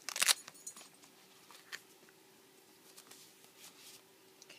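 Handling noise from hands moving a doll's cloth dress: a short, loud rustle about a quarter of a second in, then only a few faint rustles and ticks over a faint steady hum.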